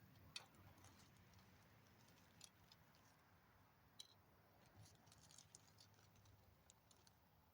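Near silence with faint, scattered clicks and ticks of small plastic model-car parts being handled, a few at a time and unevenly spaced.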